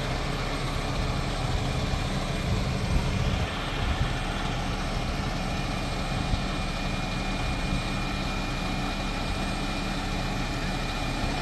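Diesel engine of a truck-mounted boom crane running steadily while the crane is being worked. Its low note eases a little about three and a half seconds in.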